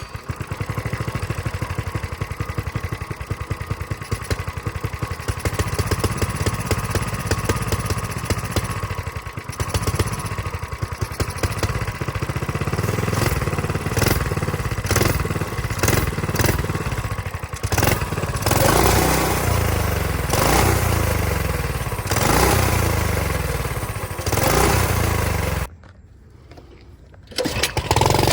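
Small single-cylinder mini bike engine running after its clogged carburetor was cleaned: a steady fast beat at first, then revving up and down repeatedly. A short break near the end, after which it runs again.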